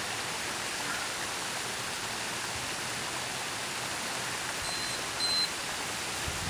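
Steady rushing of water from a small rock waterfall into a pond. About five seconds in come two short, high beeps in quick succession.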